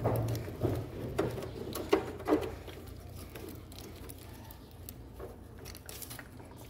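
Light clicks and knocks of hand work on the engine's fuel-injector wiring connectors, about five in the first two and a half seconds, then only a faint steady low hum.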